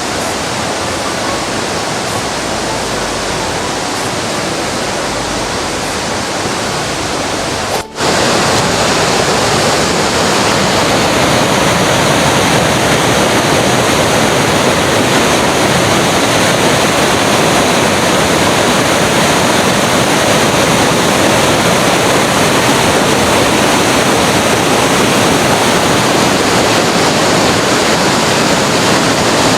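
Waterfall rushing: a steady wash of falling water that breaks off for a moment about eight seconds in and comes back louder.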